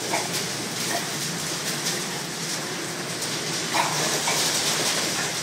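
Steady noise of hog barn ventilation fans, with a few short pig squeals: two near the start and two more about four seconds in.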